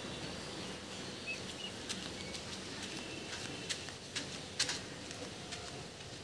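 Young ducklings with a few faint, short high peeps over a quiet background, with scattered sharp clicks now and then.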